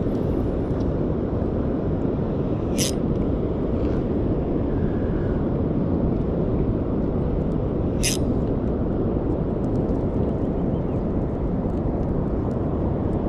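Steady wind rumbling on the microphone, with two brief sharp clicks about three and eight seconds in.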